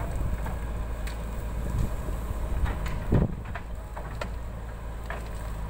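JCB 3DX backhoe loader's diesel engine running under load as the backhoe dumps soil into a tractor trolley. Scattered clunks and knocks, with a louder thud about three seconds in.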